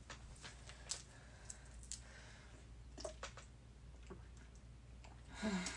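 Faint, scattered clicks and crinkles of a plastic water bottle being handled and drunk from, with a short falling voice sound near the end.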